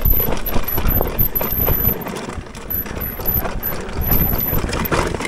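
Mountain bike rolling fast down a rough trail: a steady clatter of irregular knocks and rattles from the bike, over a low rumble.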